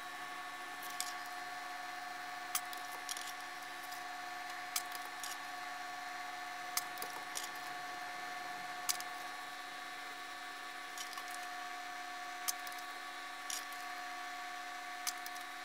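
Hot-roll laminator running: a steady, even whine from its roller drive motor and gears as a solder-masked circuit board passes between the rollers, with scattered light clicks of the board and casing being handled.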